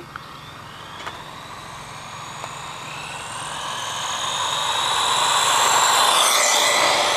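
Vintage Marui Samurai electric RC car whining at speed as it approaches, getting steadily louder for about six seconds, then changing pitch as it passes close by.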